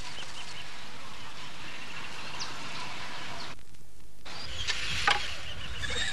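Bird chirps over a steady outdoor background noise, then, after a brief drop-out, a louder low rumble with a few sharp knocks.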